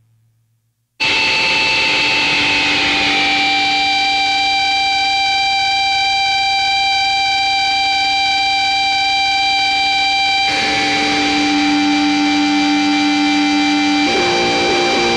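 Opening of a black metal demo track: after about a second of silence, a loud, steady wall of distorted sound with several held tones starts suddenly. The held notes shift about ten seconds in and again near the end, leading into heavy metal.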